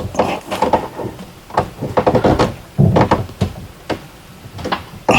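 Irregular knocks, clunks and rubbing as a rubber hose is worked by hand onto a fitting on a personal watercraft's water box, with a heavier rubbing thump about three seconds in.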